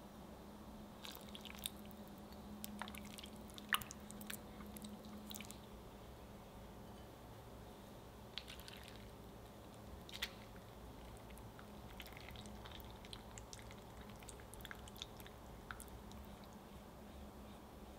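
Silicone spatula stirring a white chocolate glaze mixture in a glass bowl: soft wet stirring with scattered light clicks of the spatula against the glass, busiest in the first few seconds and again near the middle.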